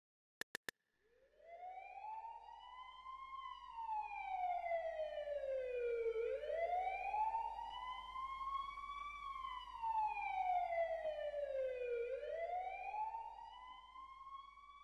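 Three quick clicks, then a police siren in slow wail mode, its pitch rising and falling about once every six seconds. It swells in about a second in and grows quieter near the end.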